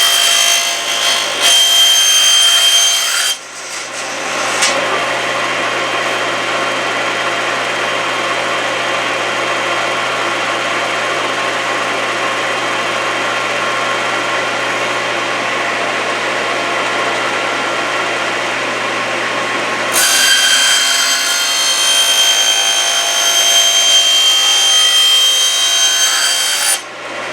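Table saw with a carbide-toothed blade cutting a plexiglass sheet, with a high whine during each cut. The first cut comes in the first few seconds and the second from about twenty seconds in until just before the end. The saw keeps running between the two cuts.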